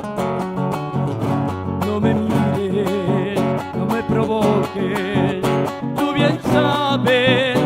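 Acoustic guitars playing a folk instrumental introduction: a nylon-string guitar picking a melody over strummed chords. A wavering melody line with vibrato comes in near the end.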